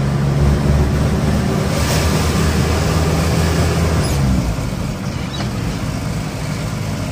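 Vehicle engine running and road noise heard from inside the cab while driving; the low engine hum fades about two-thirds of the way through, leaving a steady rush of road and wind noise.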